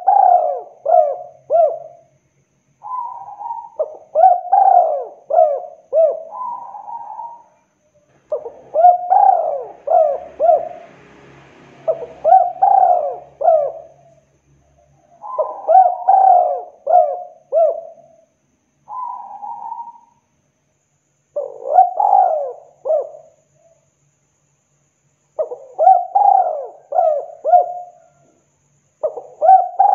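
Spotted dove (tekukur) cooing: phrases of three to five quick, falling coos repeated every few seconds, with a few softer single notes between them. It is the dove's territorial call, played as a lure to set other doves calling.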